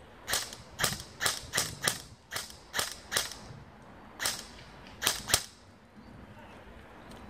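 Airsoft gun firing about eleven single shots in quick, irregular succession over some five seconds, each a sharp snap.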